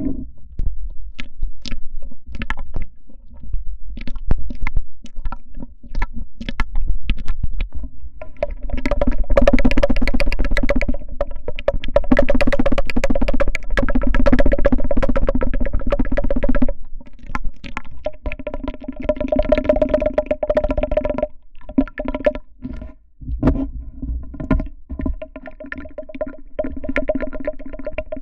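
Music with a synthesizer-like sustained tone and many sharp clicks and taps, dropping out briefly a few times in the second half.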